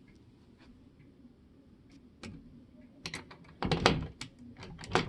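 A key worked in the lock of a grandfather clock's case door: a few light clicks, then a quick run of louder metallic clicks and rattles over the last two seconds.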